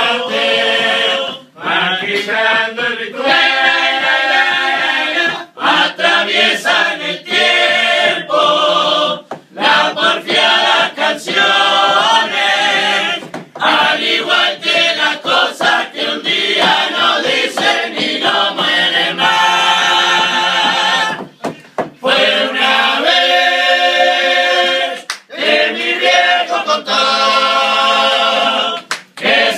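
Uruguayan murga chorus singing a cappella, a group of voices together, with short breaks between phrases.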